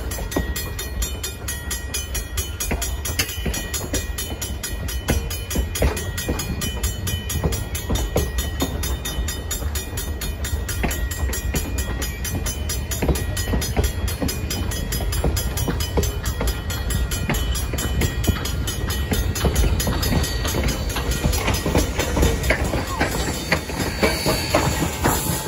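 Passenger coaches of a steam excursion train rolling past at a grade crossing, a steady rumble with the wheels clacking over rail joints. Near the end the steam locomotive, No. 97, draws level and a hiss of steam rises over the rumble.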